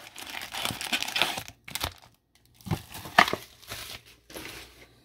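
Cardboard blaster box being torn open and its foil-wrapped trading card packs pulled out and handled, giving irregular crinkling and tearing in short bursts, with a brief pause about two seconds in.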